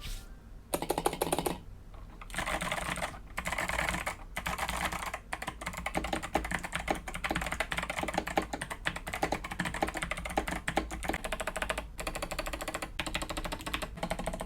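Typing on an 8BitDo Retro Mechanical Keyboard: rapid, clicky keystrokes from its Kailh Box White switches, in runs broken by a few short pauses.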